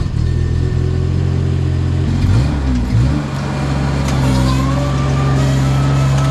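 Engine of a Skyjack SJ6832RT rough-terrain scissor lift running just after starting. Its note dips briefly twice, about two and three seconds in, then settles steady, with a fainter higher whine joining it.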